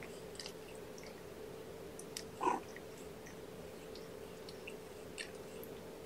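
Mother cat licking and grooming her newborn kittens: soft, scattered wet licking clicks over a steady low hum, with one brief louder sound about two and a half seconds in.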